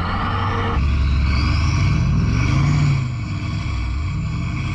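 V8 SUV engines revving hard under load, a Mercedes-AMG G63 and a Hummer H1 straining against each other on a tow strap in a tug of war. The revs climb about two seconds in and ease off near three seconds.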